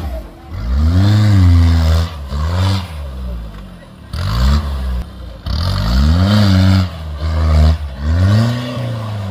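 Off-road Jeep's diesel engine revving hard under load as it climbs a steep dirt slope. The revs rise and drop back about six times in succession.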